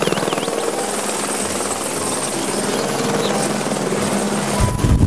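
Helicopter in flight: rapid, steady blade chop from the rotor with a steady high whine above it. About four and a half seconds in, a louder low rumble comes in.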